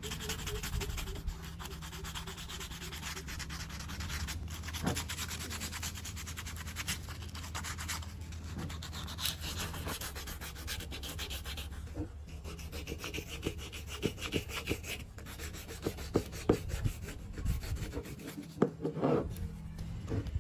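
Sandpaper rubbed back and forth by hand over a hardened repair patch on a plastic frame, a dense scratchy sanding sound, with sharper, louder strokes and a few knocks near the end.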